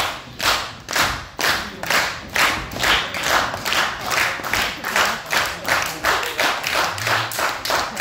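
Spectators clapping in unison at a steady rhythm, about two claps a second.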